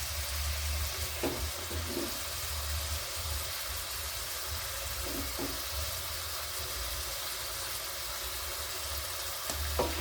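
Chopped tomatoes, onions and green pepper sizzling steadily in hot cooking oil in a pot, with a low steady hum underneath.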